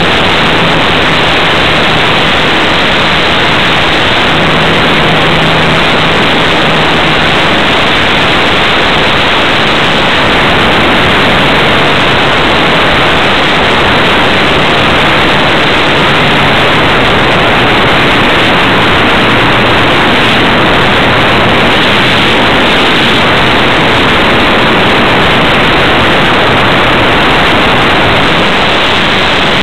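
Radio-controlled model airplane in flight, heard from a camera mounted on the plane: a loud, steady rush of wind and motor-propeller noise, with a faint low hum that wavers slightly in pitch.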